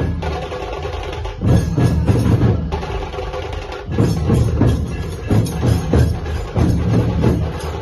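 Dhol-tasha-zanj ensemble playing: deep dhol drums, sharp tasha drums and clashing zanj cymbals in a fast, loud rhythm, with surges of heavy drumming about a second and a half in and again about four seconds in.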